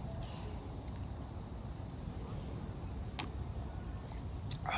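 Crickets singing: a steady, unbroken high trill, with two short faint clicks about three and four and a half seconds in.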